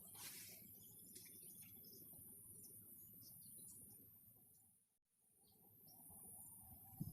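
Faint outdoor ambience: scattered small bird chirps over a steady high hiss, dropping away to silence for a moment about five seconds in.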